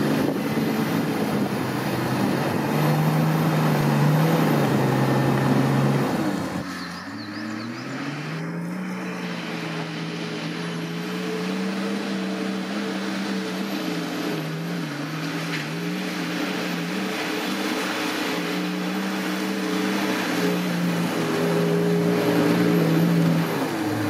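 Off-road 4x4 engine running steadily. About seven seconds in, its note drops away, then climbs back up and holds with small wavers.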